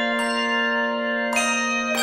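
A handbell choir ringing full chords that sustain and overlap, with a new chord struck just after the start and two more near the end.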